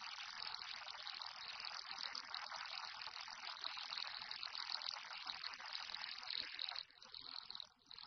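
A steady rushing hiss like gushing water, with no tune or voice, dipping briefly about seven seconds in.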